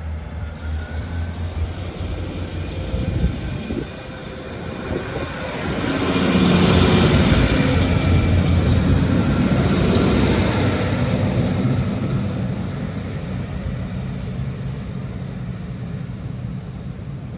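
Class 156 diesel multiple unit pulling out. Its diesel engines run steadily at first, then grow loud for several seconds around the middle as the train passes and accelerates away, fading slowly towards the end.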